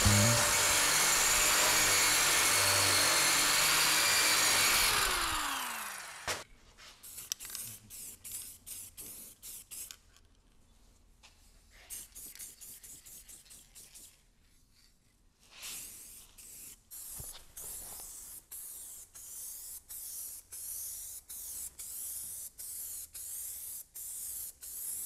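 Handheld electric drum sander running against a bare steel strip, then winding down about five seconds in. After that comes an aerosol spray can hissing in many short, quick bursts as the bare metal is sprayed.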